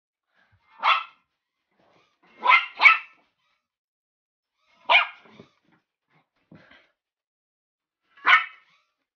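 Shih Tzu puppy barking: five short barks, two of them in quick succession about two and a half seconds in.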